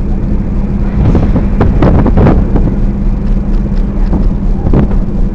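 Strong wind buffeting the camera microphone on the open deck of a ship under way, in gusts over a steady low hum from the vessel.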